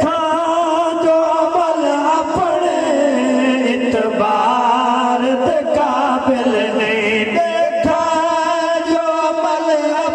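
Male reciters chanting a Saraiki naat into microphones, in long held notes that waver and glide between pitches.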